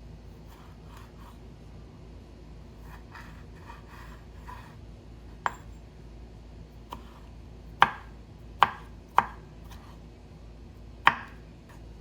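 Knife chopping on a cutting board: soft scraping and rustling, then a few sharp, irregularly spaced knocks in the second half.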